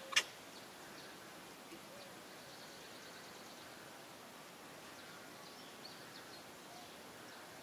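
Steady outdoor background hiss with faint, thin high chirping. One sharp click comes just after the start.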